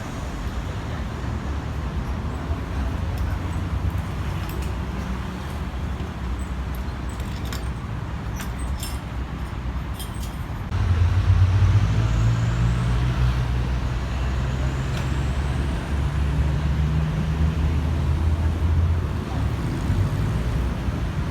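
A vehicle engine running with a steady low hum that suddenly gets louder about halfway through. A few light clicks come shortly before the change.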